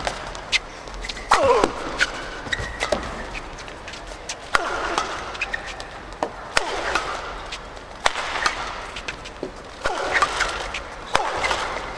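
Badminton rackets striking a shuttlecock in a fast doubles rally: sharp hits every second or two as one side smashes again and again and the other returns, with shoes squeaking on the court between hits.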